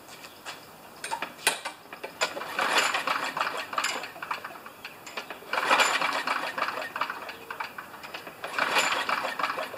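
Briggs & Stratton Quantum lawn mower engine spun over by its recoil starter rope with the spark plug out, about four pulls, each a quick rattling whir. With no compression the engine turns over freely without banging, clearing the excess oil from the cylinder.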